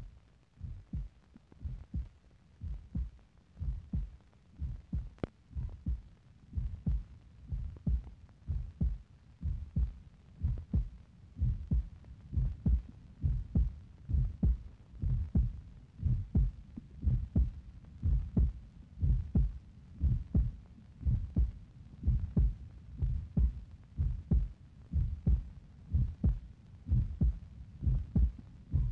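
A low, heartbeat-like thumping pulse repeating steadily at about three beats every two seconds, some beats doubled, with faint scattered clicks.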